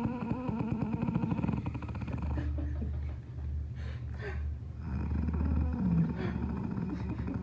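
Heavy snoring with a fluttering rattle, a sound likened to a Harley exhaust.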